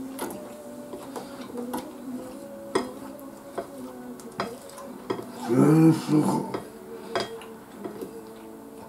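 Tableware clinking against dishes during a meal: scattered sharp clicks and taps. About five and a half seconds in comes the loudest sound, a short voiced sound like a hum.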